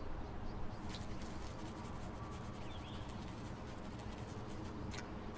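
Steady low background noise with a faint short bird call about three seconds in and a few soft clicks.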